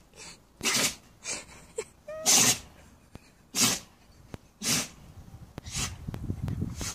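A dog sneezing over and over: about five or six sharp sneezes, roughly a second apart.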